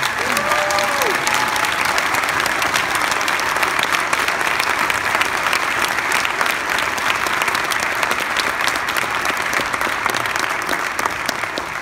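Audience applause from a concert hall full of people, steady and sustained, with a brief cheer from one voice near the start.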